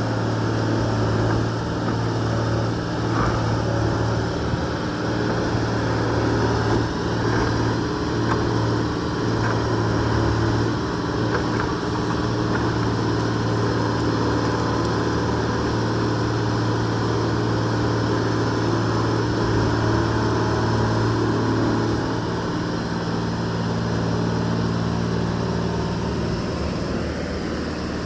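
A 125B excavator's diesel engine running steadily at a constant speed, a low, even drone.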